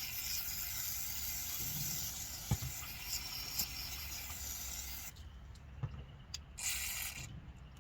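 Aerosol spray can hissing as a carburetor part is sprayed out: one long spray that stops about five seconds in, then a short second burst near the end, with a few light clicks of handling.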